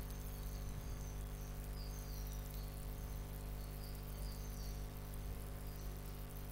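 Steady low electrical hum and hiss of background room noise, with faint short high-pitched chirps scattered through.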